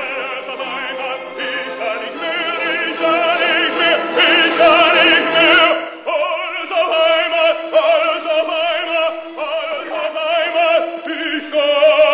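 Background music: operatic singing with a strong vibrato on long held notes, with a short break about six seconds in.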